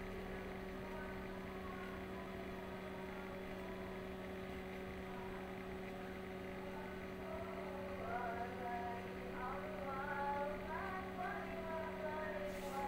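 A steady electrical hum, with background music and singing faintly audible, growing louder about eight seconds in.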